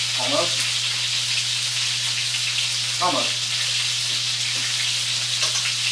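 Breaded chicken pieces pan-frying in oil in a skillet: a steady sizzle.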